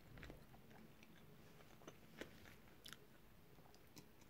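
Faint chewing of a burger, with a few soft scattered mouth clicks.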